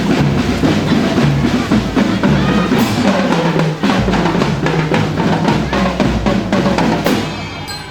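Marching band playing, led by its drum line: snare and bass drums beating steadily, with held low notes underneath. The playing thins out near the end.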